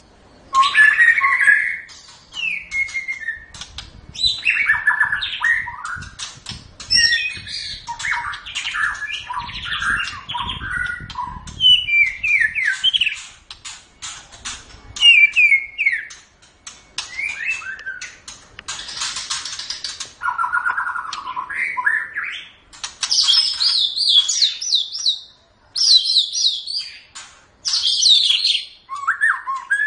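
White-rumped shama (murai batu) singing a long, varied run of short whistled and chattering phrases separated by brief pauses, with a harsh scratchy phrase near the middle.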